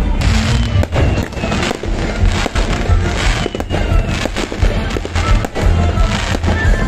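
Fireworks going off in a rapid, irregular string of bangs and crackles over loud music with a heavy bass.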